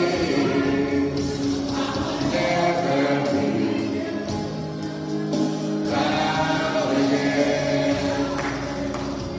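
Gospel worship music with a choir singing held, sustained notes.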